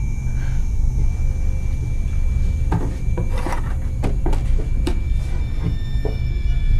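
A wooden drawer being opened and handled: a run of short wooden clicks and knocks from about three seconds in, over a steady low rumble.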